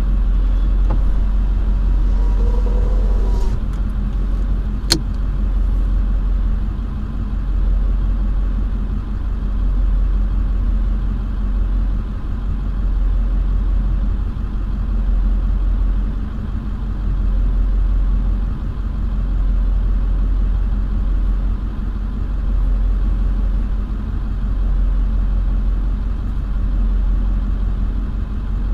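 Truck engine idling, heard from inside the cab as a steady low hum, with one sharp click about five seconds in.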